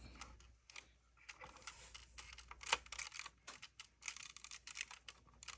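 Plastic Lego pieces clicking and rattling against each other in the hand as a model truck's roof is fitted back on: a scattered run of light clicks.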